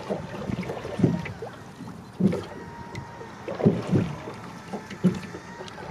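A 16-foot wooden Irish rowing boat being rowed: the oars working in their rowlocks and through the water, one stroke sound about every second and a half.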